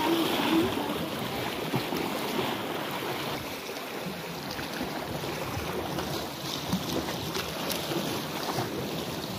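Sea waves washing against shoreline rocks, a steady rushing wash, with wind on the microphone.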